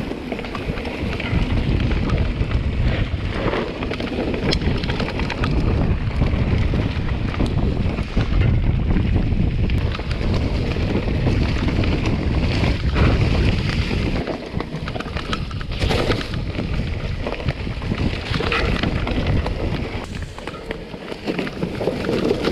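Wind buffeting the microphone while riding a mountain bike, over the crunch and rattle of tyres and frame on rough trail, with scattered knocks from bumps.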